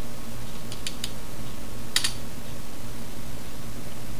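A few sharp computer keyboard keystrokes, the loudest about two seconds in, over a steady low hum.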